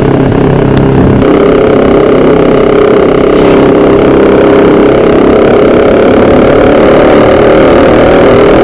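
Yamaha Byson's single-cylinder engine running steadily while the motorcycle cruises, heard from on the bike.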